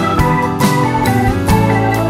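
Background music: held chords over regular sharp drum-like hits.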